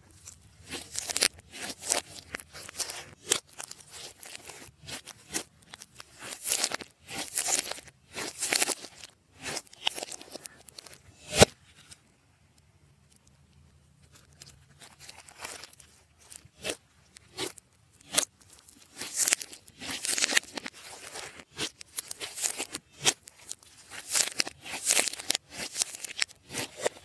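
Slime being mixed and squeezed by hand, giving irregular bursts of small clicks and pops. A single sharp click, the loudest sound, comes about eleven seconds in. After it there are a few seconds of near quiet before the handling starts again.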